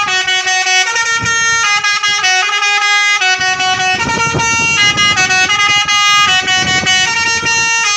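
Tunggal Jaya bus's multi-tone telolet air horn playing a melody of short held notes, the pitch stepping every half second or so with several tones sounding together. From about three and a half seconds in a rough noise joins underneath.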